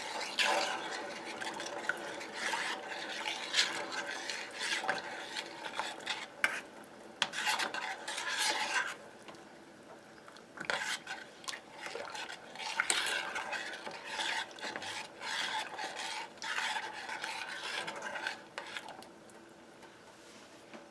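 A utensil stirring a pot of heating milk, scraping and clinking against the pot in irregular strokes, with a short lull about nine seconds in and fading out near the end.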